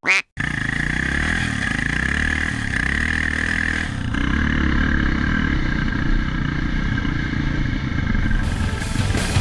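Yamaha Raptor 660 quad's single-cylinder four-stroke engine running, its pitch rising and falling slightly.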